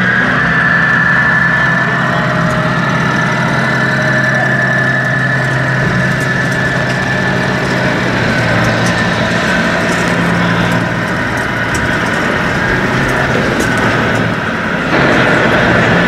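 Steady idling engine sound of a 1:4-scale radio-controlled Peterbilt truck: a low hum with a thin high whine over it. About fifteen seconds in, it gives way to the louder, even noise of an exhibition hall.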